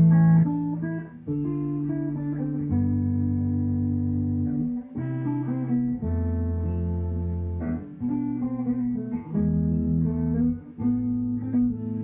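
Electric guitar, a Chibson (counterfeit Gibson) Les Paul Custom copy with three pickups, played through a Marshall JCM 800 combo amp: a run of held chords, each ringing out for one to three seconds before the next.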